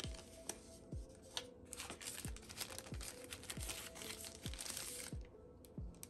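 Thin plastic sleeve crinkling as a clear phone case is pulled out of it. The crinkling starts about two seconds in and stops about five seconds in, over background music with a steady beat of deep kick drums.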